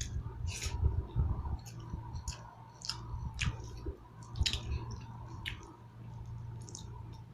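Close-up eating sounds: wet chewing and mouth noises with irregular sharp clicks, likely a spoon or fork against a plate, over a faint steady hum.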